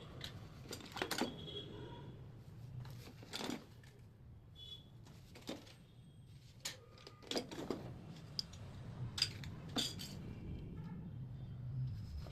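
Irregular metallic clinks and knocks, a dozen or so scattered sharp hits, over a low steady hum: bicycle parts and hardware being handled during unboxing.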